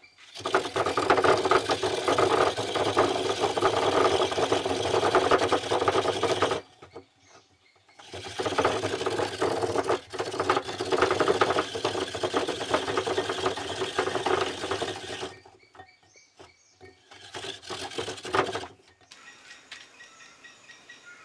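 Hand-cranked coconut scraper, its serrated metal blade turning against a halved coconut and grating out the white flesh. The scraping comes in three spells: two of about seven seconds with a short pause between, and a brief one near the end.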